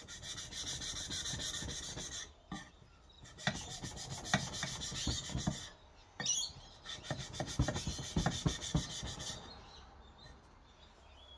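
A knife's scandi bevel being stroked back and forth across 800-grit wet/dry abrasive paper lubricated with WD-40, a gritty rasping scrape. It comes in three runs of strokes with short pauses between, the last with sharp clicks, and stops about two-thirds of the way through.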